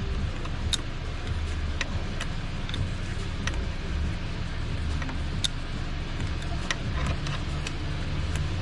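Light metallic clicks and clinks of a hand wrench working on the ATV, about a dozen scattered through, over a steady low rumble.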